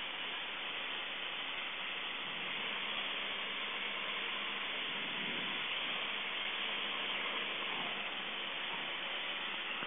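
Steady hiss of a Cessna 152 in flight, with engine, propeller and airflow noise blended together and a faint low hum underneath. The engine is still at pattern power on the downwind leg, before the power is pulled back.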